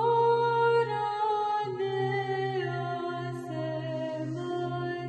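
A woman's solo voice chanting a Byzantine church melody in long, gliding phrases that step mostly downward, over a steady low ison drone held beneath.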